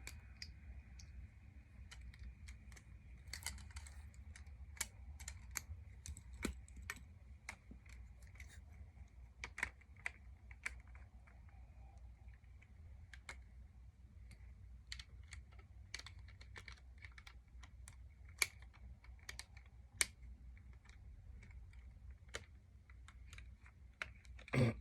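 Irregular light clicks and snaps of Lego plastic pieces being handled, with a louder knock near the end, over a faint low hum.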